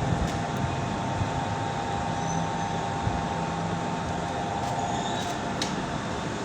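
Metal lathe running: steady machine noise with a constant whine and a low hum, and a few faint clicks.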